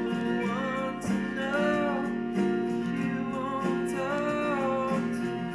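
Background music: guitar with a gliding melody line over it, playing steadily.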